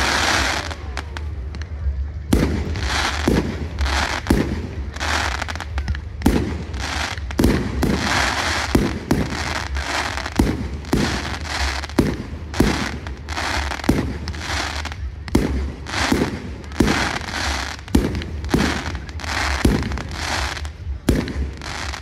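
Fireworks display: aerial shells bursting in quick succession, about one to two loud bangs a second without a break, over a steady low rumble.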